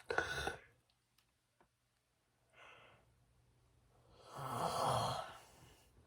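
Snoring during sleep: a short sharp snort at the start, a faint breath about two and a half seconds in, then a long, louder snoring breath with a low flutter near the end.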